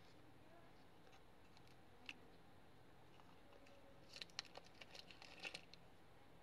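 Faint clicks and taps of small miniature makeup pieces knocking against each other and a cardboard box as they are handled: one click about two seconds in, then a quick cluster of light clicks a little past the middle.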